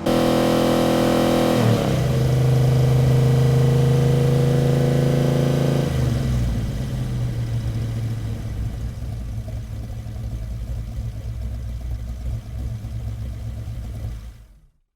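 Modified 1970 Chevy Chevelle's 486ci big-block V8 with Flowmaster exhausts, held at steady revs and stepping down in pitch about two seconds in. About six seconds in it drops to a rough, lumpy idle, which fades out near the end.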